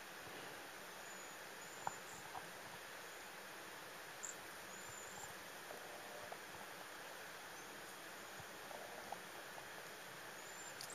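Cedar waxwings calling: a few short, thin, very high-pitched calls spread through, over a steady hiss, with a few small clicks, the sharpest about two seconds in.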